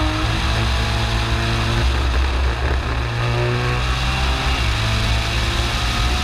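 Race-tuned R35 Nissan GT-R's stroked 4.1-litre twin-turbo VR38DETT V6 at speed on track, heard onboard, its revs climbing and dropping as the car accelerates and shifts.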